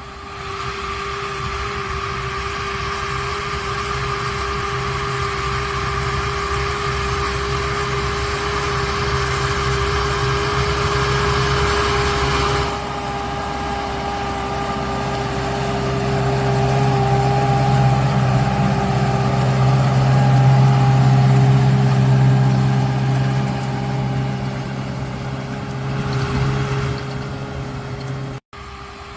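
Large diesel farm machinery running steadily under load, a low engine drone with a constant whine over it. The sound changes abruptly about 13 seconds in, and there is a very short break near the end.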